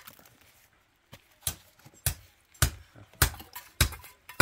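A steady series of sharp knocks, about one every 0.6 seconds, starting after a short lull about a second and a half in.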